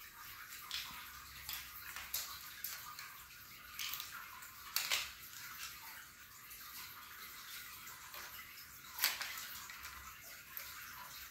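Plastic toy building blocks clicking and clattering on a tile floor as kittens bat at them, over a steady hiss. Two sharper clacks stand out, about five seconds in and about nine seconds in.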